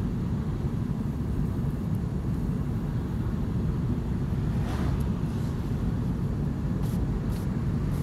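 Steady low rumble of a car being driven, heard from inside the cabin: engine and tyre road noise.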